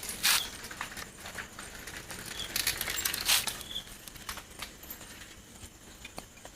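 A dog sniffing close by: a few short sniffs with faint scuffing and rustling around them.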